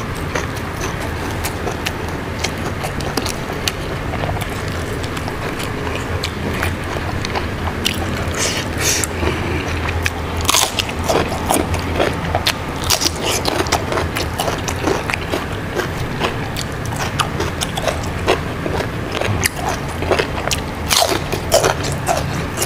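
Close-miked mukbang eating: a man biting and chewing crunchy raw lalapan, with many short crackles and mouth clicks over a steady low hum.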